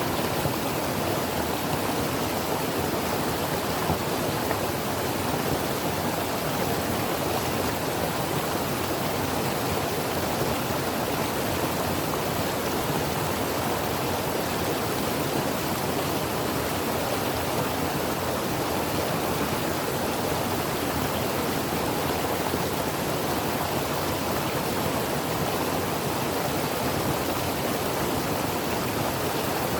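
Mountain creek water flowing steadily over rocks, an even rushing without breaks.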